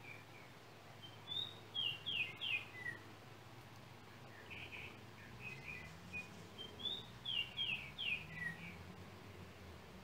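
Yellow oriole singing: two phrases of short whistled notes, several sliding down in pitch, the first about a second in and the longer second one starting near the middle.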